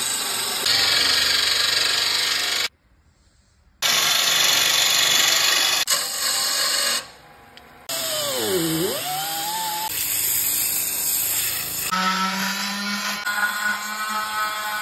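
Woodturning: a gouge cutting a spinning spalted sycamore blank on a JET wood lathe, a steady shaving noise that stops briefly about three seconds in. Then a drill-driven sanding disc on the turning wood, whose pitch dips and rises once, and near the end an oscillating multi-tool buzzing against the wood.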